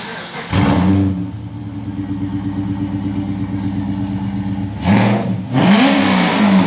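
Holden Commodore VZ SS's LS1 V8 starting with a burst about half a second in, then idling steadily. It is revved twice near the end, the second rev climbing and falling back.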